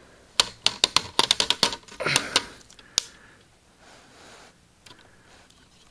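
Plastic snap clips of a Lenovo V570 laptop's screen bezel clicking loose as the bezel is pried off the lid by hand: a quick run of sharp clicks, then a short rub and one more click about three seconds in.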